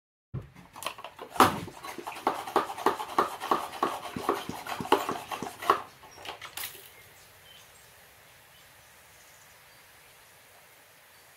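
A run of quick, rhythmic animal sounds, about three to four a second, that stops suddenly about six and a half seconds in, leaving a faint steady hum.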